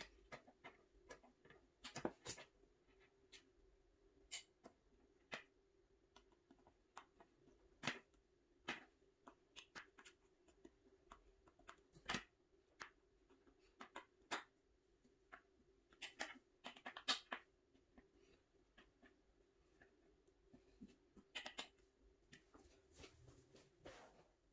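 Faint, irregular clicks and ticks of a metal drawer runner being handled and fastened to a particleboard furniture panel by hand, over a faint steady hum.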